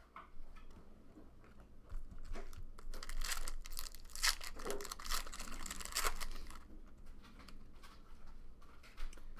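Foil trading-card pack wrapper crinkling and tearing as it is opened by hand, from about two seconds in until past the middle, followed by softer rustling of cards being handled.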